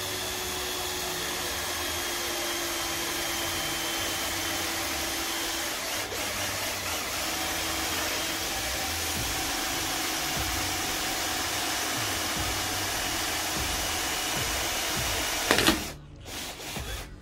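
Cordless drill running steadily with a constant motor whine as it bores into a panel. A sharp knock comes near the end, and the drilling stops.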